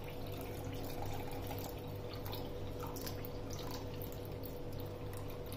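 Beef broth trickling and dripping in a thin stream from a plastic strainer into a glass bowl of broth, with a steady low hum behind it.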